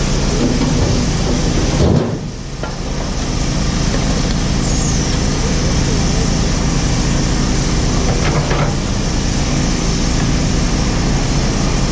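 JCB 4CX backhoe loader's four-cylinder diesel engine running steadily under work, with a sudden brief dip about two seconds in and a short clatter around eight seconds in.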